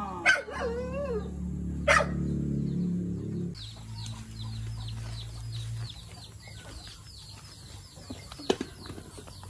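An animal whining and yelping, with two sharp cries in the first two seconds over a low hum. Then comes a fast run of short high chirps.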